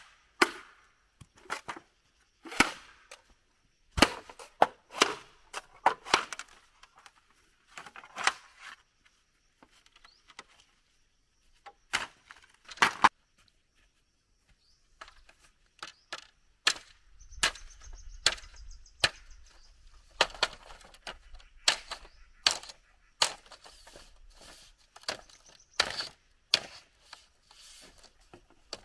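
A machete chopping and splitting bamboo: sharp, irregular strikes on the cane, some in quick pairs, with short pauses between groups.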